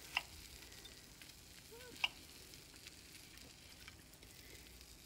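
Faint sizzling of hot fat and juices around freshly baked meatballs on the pan, with two light clicks of a knife against the pan, one just after the start and one about two seconds in.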